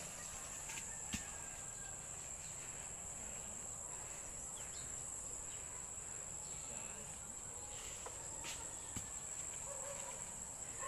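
Insects droning in a steady high-pitched chorus, with a few soft clicks.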